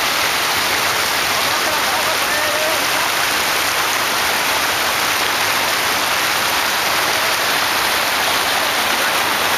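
Floodwater rushing and splashing over the edge of a submerged road and across the flooded verge: a steady, loud rush of water.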